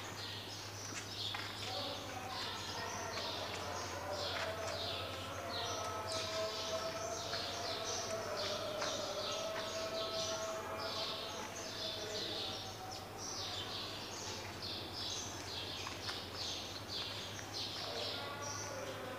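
A flock of small birds chirping busily and without pause, many short chirps a second, over a steady low hum. A faint wavering tone is heard for several seconds in the middle.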